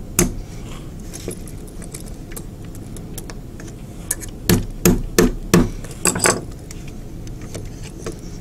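Small metal pin punch clicking and knocking against a plastic toy robot's shoulder joint while a hinge pin is forced out. A couple of light clicks near the start, then a run of about six sharp knocks between about four and six and a half seconds in.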